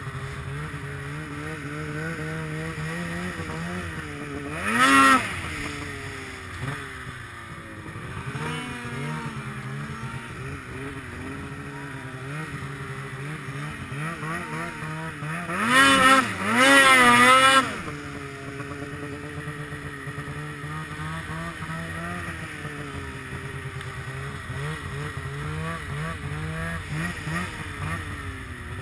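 Two-stroke snowmobile engines running: a steady engine note that wavers with the throttle, broken by two loud revs that rise and fall in pitch, a short one about five seconds in and a longer one around sixteen to seventeen seconds in.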